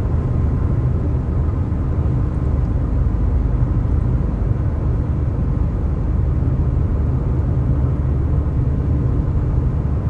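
Steady low rumble of a car driving along, road and engine noise heard from inside the cabin.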